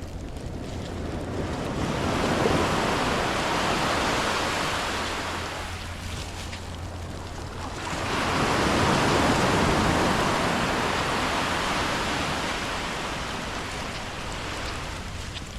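Ocean surf: two waves breaking and washing up the beach, each swelling and then fading over several seconds.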